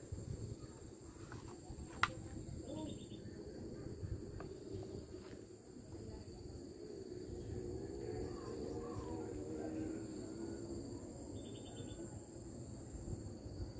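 Outdoor ambience of insects singing in steady high-pitched tones, with a few short pulsed chirps and a single sharp click about two seconds in, over a low rumbling background.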